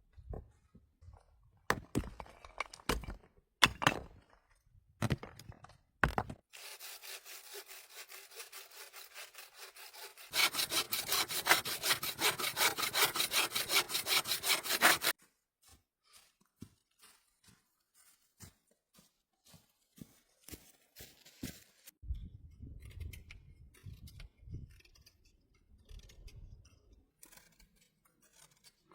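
A saw cutting through wood in steady strokes for about eight seconds, louder from about ten seconds in. Before it come a few knocks and handling sounds; after it come scattered light taps and low thumps.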